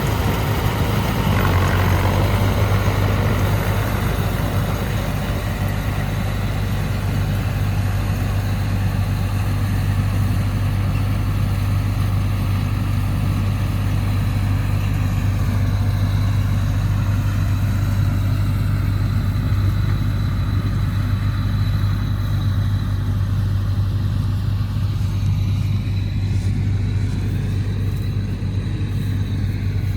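Tractor diesel engine running steadily under load, driving a Nippy45 mini combine harvester attachment, with an even low drone throughout.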